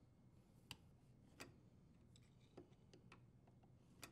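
Near silence with about five faint, scattered clicks from parts being handled at the base of the dishwasher.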